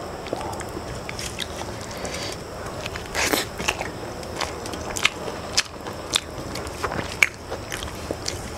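Close-up eating sounds: fingers mixing and scraping rice with curry on a stainless steel plate, with chewing and many short sharp clicks. A louder burst comes a little over three seconds in.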